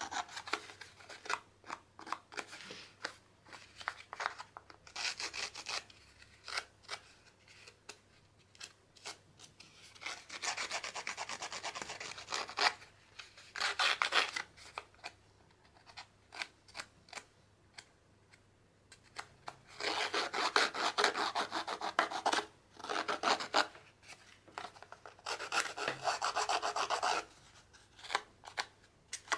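Handheld edge-distressing tool with small sharp blades scraped again and again along the edge of a cardstock card, rasping the paper into a frayed edge. It comes as runs of quick scraping strokes with short pauses between them, the longest runs about ten and twenty seconds in.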